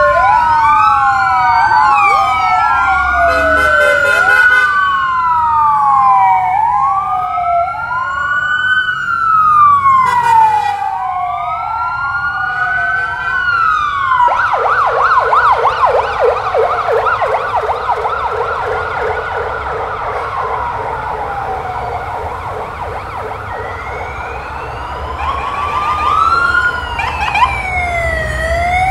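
Police escort sirens wailing, several at once, their slow rising and falling tones overlapping. About halfway through, one switches to a fast warbling yelp, and the slow wail returns near the end.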